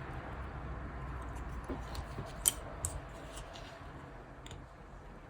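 Light, scattered clicks and taps of small tools and parts on an opened iPhone 11's internals, with one sharper click about two and a half seconds in.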